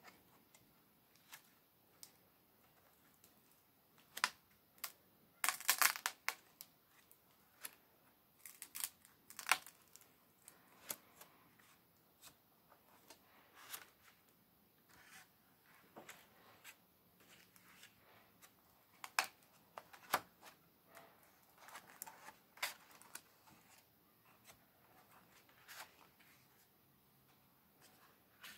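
Thick, paint-coated pages of a Dylusions A4 art journal being turned by hand: scattered paper rustles, flaps and light taps, the loudest flurry about six seconds in.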